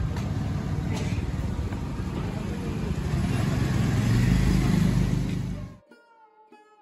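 Outdoor street traffic: a motor vehicle's engine rumble grows louder about four to five seconds in, as if passing close, then cuts off abruptly and faint sitar-like plucked music starts.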